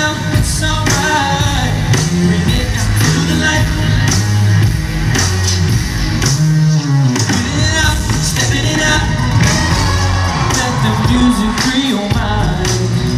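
Live amplified pop music: a male singer's vocal over a steady beat with a strong moving bass line.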